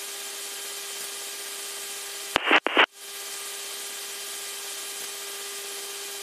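Steady hiss of a KC-135 Stratotanker's cockpit noise in flight, with a steady electrical hum under it, broken about two and a half seconds in by two short, loud bursts of static.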